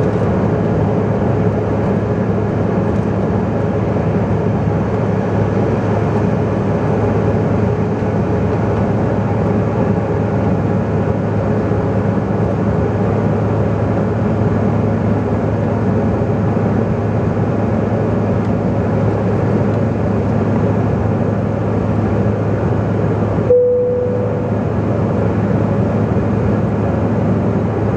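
Steady cabin noise of a CRJ900 regional jet in its climb after takeoff, heard from inside the cabin: the drone of its rear-mounted CF34 turbofans mixed with the rush of air along the fuselage. About three quarters of the way through, the sound breaks off for an instant and a brief single tone sounds.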